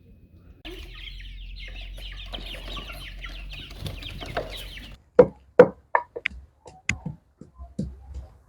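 A flock of young chickens peeping and chirping together, then a run of about ten sharp knocks spaced less than half a second apart from about halfway through.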